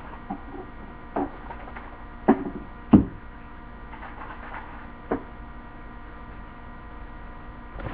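A handful of scattered knocks and clunks as someone moves about the room handling things, the loudest about three seconds in, over a low steady hum.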